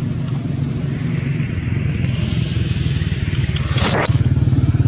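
A motor engine running with a steady low throb, growing louder about four seconds in, just after a brief hiss.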